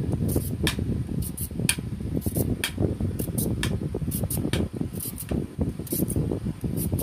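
Vegetable peeler scraping down a fresh carrot in quick, irregular strokes, about two or three a second. A steady low rumble runs underneath.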